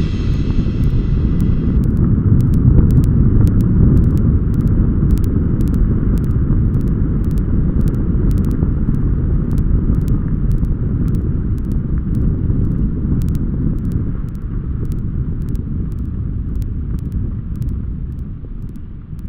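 Wind buffeting the microphone of a bike-mounted camera, a steady low rumble, as a mountain bike rolls fast down a muddy forest trail, with scattered sharp ticks and rattles from the bike and the trail surface. A music track fades out in the first couple of seconds.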